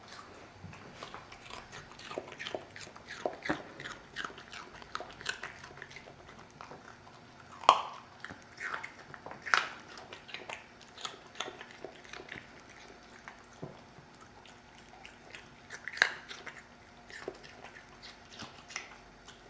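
A Lhasa Apso mix dog crunching and chewing pieces of raw carrot, with irregular crisp crunches throughout and a few louder bites scattered among them.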